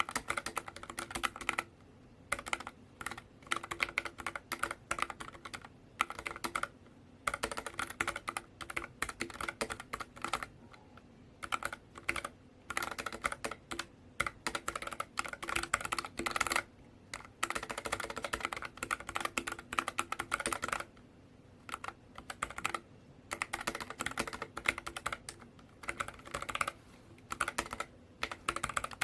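Typing on a NuPhy Air60 low-profile 60% mechanical keyboard: quick runs of key clicks in bursts of a few seconds, broken by short pauses.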